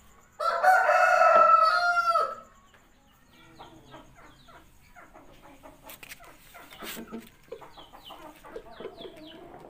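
A rooster crows once, a loud call about two seconds long. After it, chickens cluck in many short quick calls, with a couple of sharp knocks about halfway through.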